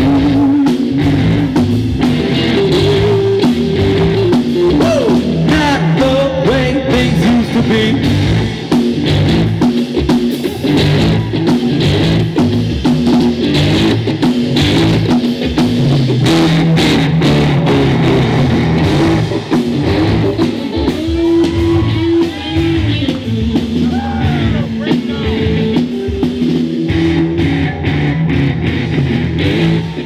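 Rock music with electric guitar, a drum kit and singing.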